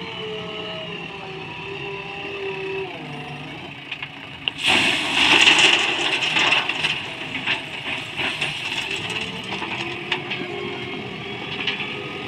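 JCB backhoe loader's diesel engine running, its pitch shifting as it lifts the loaded front bucket. About four and a half seconds in, ballast stone is tipped from the bucket into the steel body of a tipper truck: a sudden loud clatter that lasts about two seconds and trails off into scattered stone clicks.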